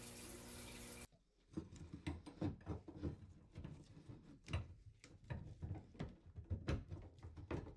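Irregular light clicks, knocks and scrapes of copper pipe and brass fittings being handled, as a copper tub-spout pipe is worked into the fitting of a shower valve. A steady hum cuts off abruptly about a second in.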